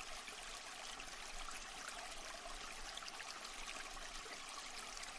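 Stream water babbling and trickling steadily, a soft, even flow.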